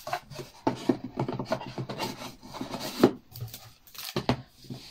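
Cardboard rubbing and scraping as a cardboard advent calendar box is handled and its lid folded shut, in a run of irregular strokes with a sharp knock about three seconds in.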